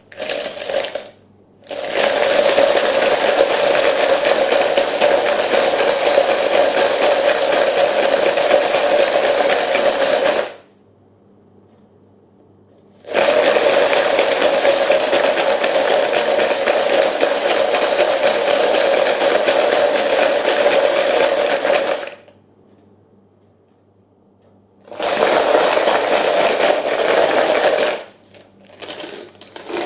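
Cast lead .30-calibre bullets rattling and tumbling around inside a plastic bucket as it is swirled by hand, coating them with liquid bullet lube. It comes in three long, steady bouts with short pauses between, and a few shorter rattles near the end.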